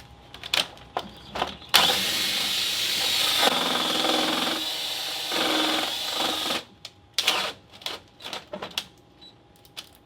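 DeWalt cordless hammer drill motor runs for about five seconds, its sound changing twice partway through, with scattered clicks and crackles before and after. The drill is failing: its brushes are burning, and it sizzles, smokes and has lost its power.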